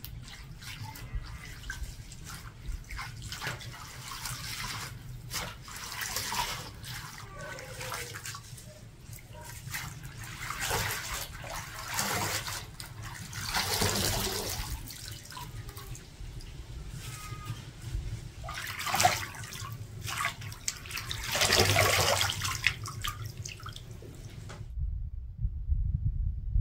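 Water splashing and running in several swells, with drips and small knocks between: hands rinsing fresh greens in water. Near the end it cuts off, and a low steady rumble follows.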